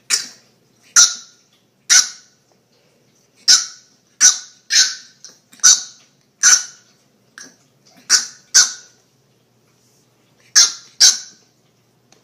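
French bulldog puppy yapping in short, high-pitched barks, about a dozen in all, some single and some in quick pairs, with brief pauses between.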